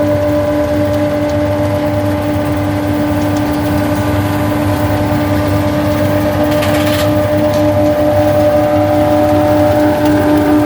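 Braud grape harvester running steadily: a continuous engine drone with a steady whine over it. A brief hiss comes about two-thirds of the way through.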